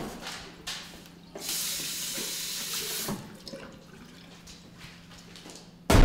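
Water running from a bathroom sink tap for about two seconds, a steady hiss, with a few light knocks and rubs around it. A faint steady hum lies underneath, and music cuts in at the very end.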